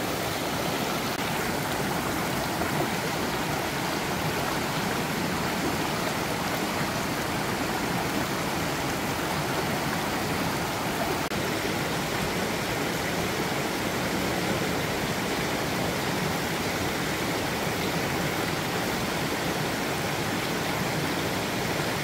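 Shallow mountain stream running steadily over rocks and small cascades: a gentle flow rather than a big fall of water.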